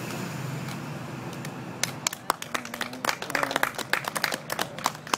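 A few people clapping: scattered, irregular hand claps that begin about two seconds in, with a brief voice in the middle.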